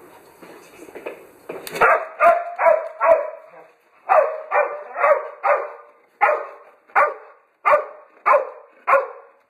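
A dog barking repeatedly: a quick run of four sharp barks starting about two seconds in, a brief pause, then about nine more barks at roughly half-second intervals.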